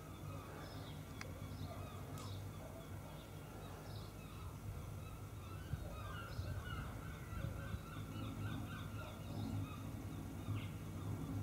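Birds calling and chirping in the background, many short scattered calls, over a low steady hum.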